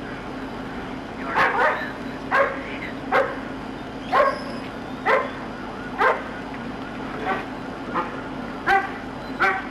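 A dog barking repeatedly, about once a second, starting about a second in, over a steady low hum.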